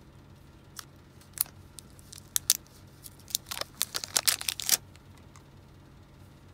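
Handling noises on a plastic battery-operated toy: scattered sharp clicks and taps as a screwdriver works at it, then a dense run of clicks and crinkling about three and a half to five seconds in as a small plastic bag is handled.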